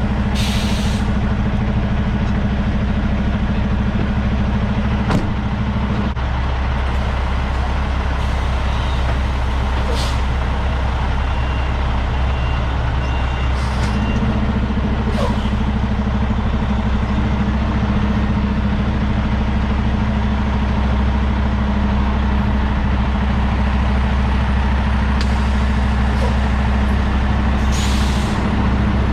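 Semi-truck's diesel engine running steadily with a deep drone, its note shifting about six seconds in and again around fourteen seconds, with a few short hisses over it.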